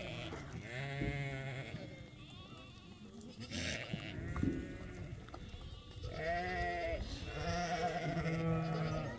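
Small livestock bleating: three wavering bleats, one about a second in and two more from about six seconds on, the last one the longest.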